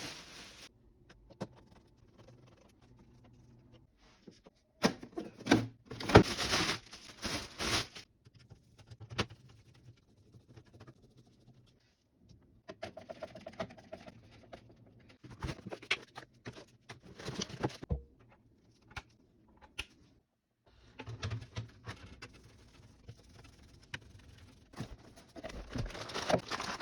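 PC parts being handled and fitted together by hand: irregular clicks, taps and rustling of plastic and metal pieces in several bursts, separated by short quiet gaps.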